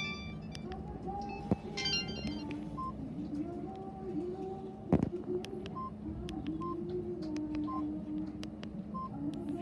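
Samsung GT-E1150 feature phone: a short burst of a beeping polyphonic ringtone about two seconds in. Then come short single high key-tone beeps roughly once a second as the ringtone list is stepped through. A sharp click sounds about halfway through.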